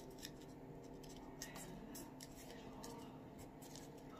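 Faint rustling and scratching of a sheet of origami paper being creased by fingertips, a few soft scratchy ticks over a faint steady hum.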